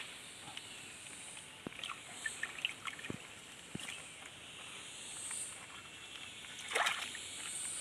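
Hands turning over stones in a shallow, muddy stream while hunting crabs: scattered light knocks of stone on stone and small water sounds, with a louder slosh of water about seven seconds in. A high hiss swells and fades every second or two behind it.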